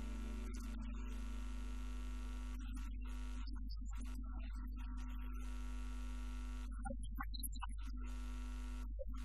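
Steady low electrical mains hum, with faint held tones above it.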